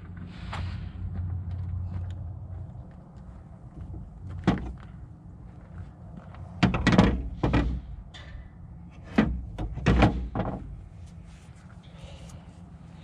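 About half a dozen scattered clunks and knocks as the ignition coil pack and its parts are handled and moved about on the engine.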